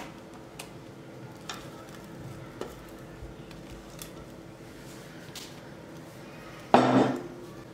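Silicone spatula working thick pastry cream in a glass bowl: soft, quiet squishing with a few faint clicks over a low steady hum, then one louder knock near the end.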